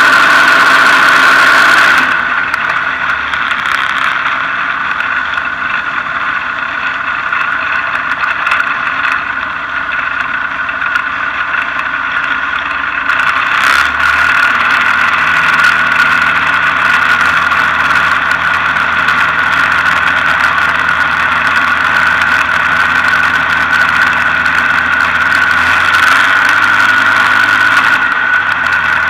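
Rans S-12 ultralight's engine running at low power on the landing rollout and taxi. Loud wind rush drops away about two seconds in as the aircraft slows. The engine note steps up about halfway through and again near the end as power is added to taxi.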